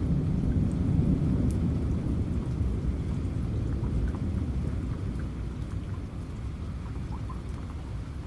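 Rain falling steadily with scattered drop ticks, under a long low rumble of thunder that is loudest in the first couple of seconds and slowly dies away.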